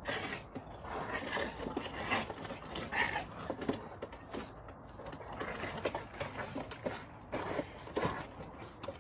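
Two puppies play-fighting in a plastic crate: irregular scuffling with short, scattered animal noises.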